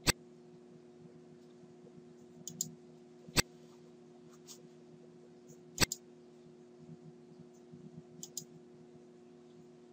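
Computer mouse clicks: three sharp clicks a few seconds apart, with a few fainter ticks between them, over a steady low hum.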